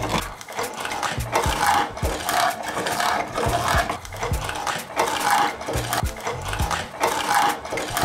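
Background music with a steady, repeating beat.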